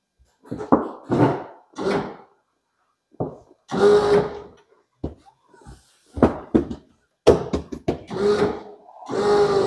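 Power convertible top mechanism of a 1964 Ford Thunderbird cycling: short runs of electric motor hum broken by clunks and knocks from the top linkage and trunk lid.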